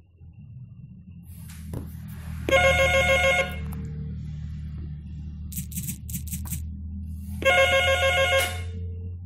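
Home telephone ringing with an electronic trilling tone: two rings about a second long each, some five seconds apart, over a steady low hum.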